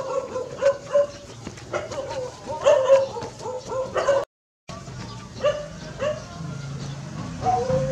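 A series of short pitched animal calls, some held briefly and some rising. The sound drops out for a moment about four seconds in.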